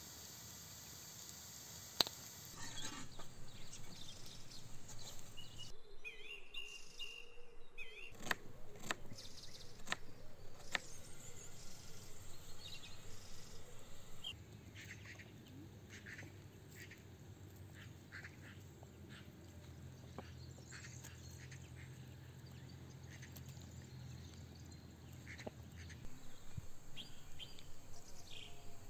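Birds calling outdoors in a string of short, sharp calls. A low steady hum takes over in the middle stretch, and the calls return near the end.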